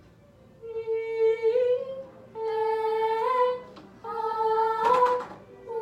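A voice humming a high held note three times, each note about a second long and ending with a slight upward slide in pitch: a vocal warm-up on high notes.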